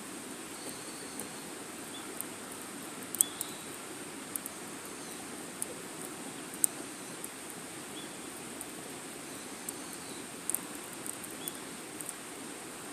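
Wood fire burning in a small metal fire pit: a steady low hiss with irregular sharp crackles and pops, two of them much louder, about three and six and a half seconds in.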